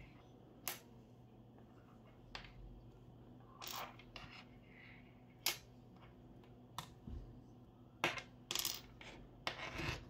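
Scattered sharp clicks and brief rubbing from a magnetic charging cable and its small metal connector tip being handled on a wooden desk, with a phone picked up near the end.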